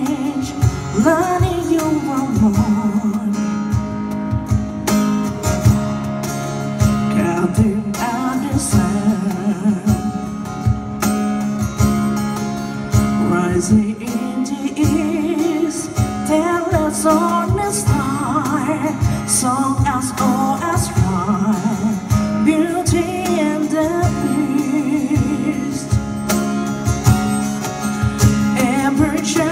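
Live acoustic band playing: wordless-sounding singing in long phrases with vibrato over plucked guitar and steady cajon beats.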